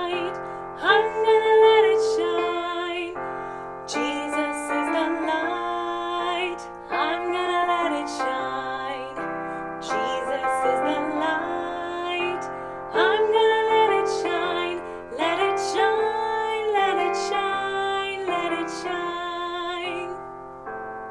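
A woman singing a children's song with piano accompaniment, her voice wavering with vibrato over steady piano chords.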